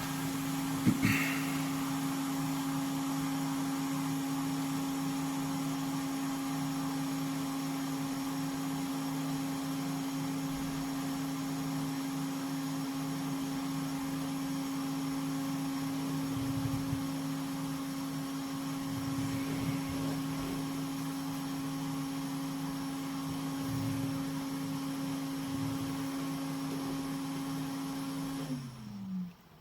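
Blower fan of a hot air rework station running with a steady hum. It spins up at the start and winds down with falling pitch near the end.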